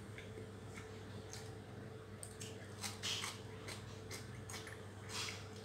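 Faint sounds of eating by hand: chewing, lip smacks and fingers working rice in a steel bowl, heard as scattered short clicks and squishes over a steady low hum.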